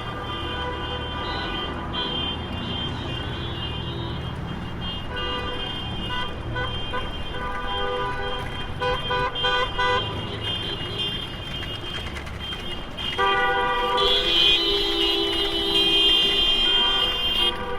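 Traffic jam: several car horns honking over the low rumble of engines, with short repeated toots in the middle and long, louder overlapping horn blasts in the last few seconds.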